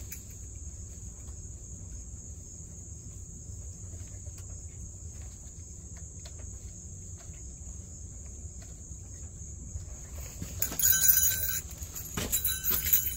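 A steady, high-pitched insect trill over a low outdoor rumble. About eleven seconds in, metal equipment jingles and clinks as a person walks up carrying it.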